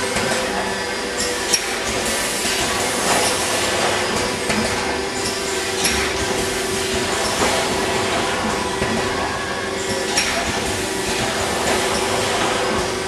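Meurer automatic tray packer dry cycling, running empty with no product: a steady mechanical hum with a held note, broken by scattered sharp metallic clicks and clanks from its moving parts every second or few.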